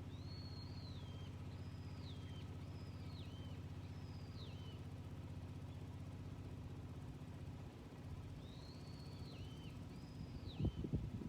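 Yanmar walk-behind tiller's diesel engine running steadily. Over it a small bird gives a string of whistled calls, each held high and then dropping, about seven in all. A few loud low thumps come near the end.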